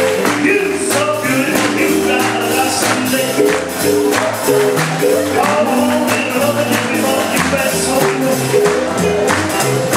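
Live band playing an uptempo boogie-woogie blues, with a stepping bass line under steady drum and cymbal strokes.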